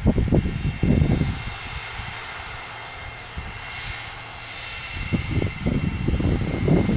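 Wind buffeting the microphone in gusts, loudest in the first second and again from about five seconds in, over a faint steady drone from the distant Artec F40 machine.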